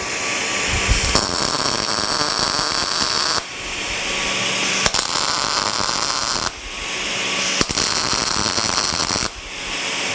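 MIG welding arc from a Lincoln POWER MIG 210 MP on thin 18-gauge sheet steel, struck three times for about two seconds each with short breaks between, the machine set a little hot, for 16 gauge. A portable fume extractor keeps up a steady fan hum underneath.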